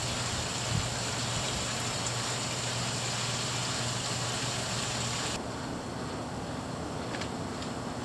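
Water rushing steadily into a plastic duck pond as it is being filled, with a low steady hum underneath. The sound cuts off abruptly about five seconds in, leaving a fainter background hiss.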